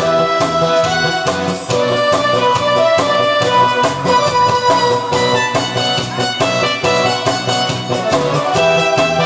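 Instrumental introduction of a Korean trot song, played as a backing track with a steady beat and a held melody line, before the vocal comes in.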